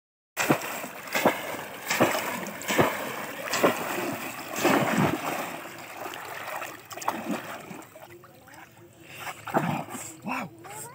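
Water splashing as a bamboo plunge-basket fish trap is rammed down into shallow muddy water, one splash about every second, then quieter for a few seconds before two more splashes near the end.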